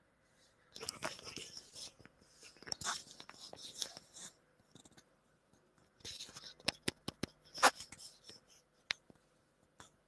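Irregular rustling mixed with sharp clicks, in two spells: one starting about a second in and one about six seconds in. The loudest click comes near the end of the second spell.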